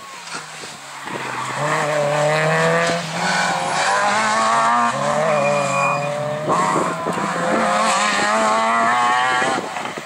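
Rally car engine pulling hard, its pitch climbing through the gears with a brief drop at each of about three upshifts, while the tyres slide on a loose dirt corner.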